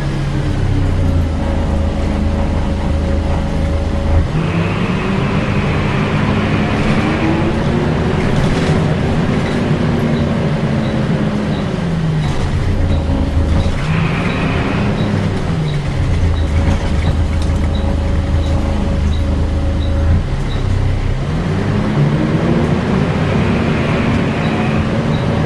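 Volvo B10BLE single-decker bus heard from inside the saloon. Its diesel engine pulls away and runs up through the gears three times, the pitch rising and falling with each change. A high whine comes in under load, the 'hoover' sound of its cooling fan. A light, regular ticking starts about a third of the way in.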